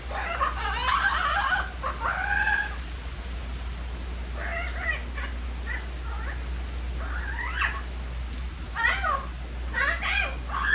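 Young yellow-headed Amazon parrot calling and squawking in a string of short, bending cries, several bunched near the start and more in quick bursts toward the end.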